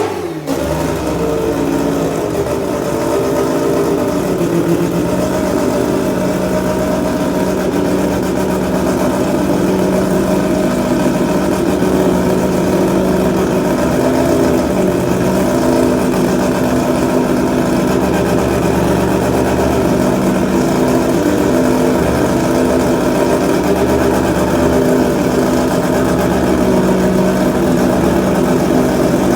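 Four-rotor Mazda rotary engine, its revs falling away in the first second and then idling steadily.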